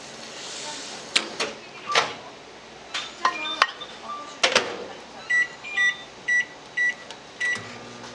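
Daewoo professional microwave oven being loaded and started: a brief pour of hot water, clicks and knocks of the cup and door, the door shutting with a knock, then five short high keypad beeps about two a second. A low steady hum starts near the end as the oven begins running.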